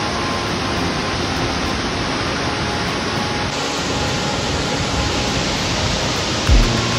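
Burney Falls waterfall pouring into its plunge pool: a steady, even rushing of falling water. Near the end, a low regular beat of background music comes in.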